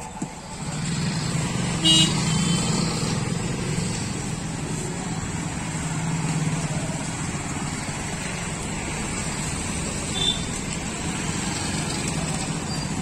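Motorcycles and scooters moving off together, engines running in a steady hum. A vehicle horn gives a short toot about two seconds in, and a shorter, fainter toot sounds around ten seconds.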